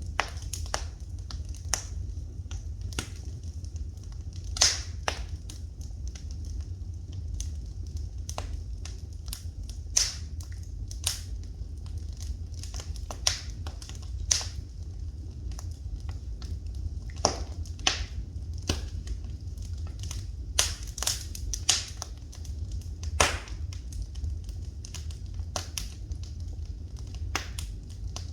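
Wood fire in a fireplace crackling, with irregular sharp pops, a handful of them much louder than the rest, over a steady low rumble.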